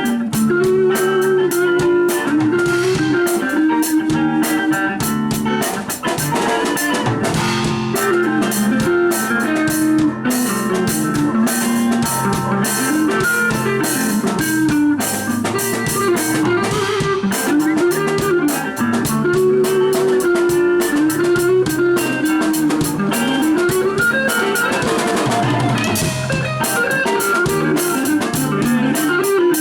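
Music with guitar and a drum kit keeping a steady beat, the guitar playing a bending lead line.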